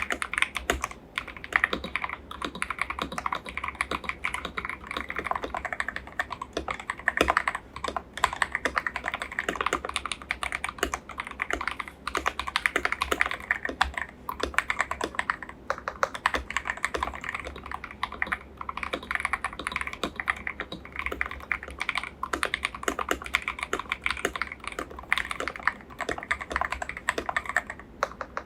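Continuous fast typing on a KBD67 Lite mechanical keyboard: a dense, unbroken stream of key presses with a fairly deep, muted click.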